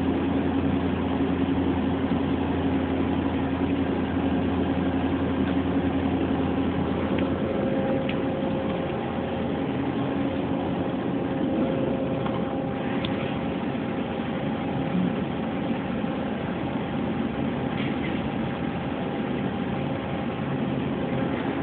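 CNC machine running under its program: a steady mechanical hum with several held tones that shift a little partway through, and a few faint ticks.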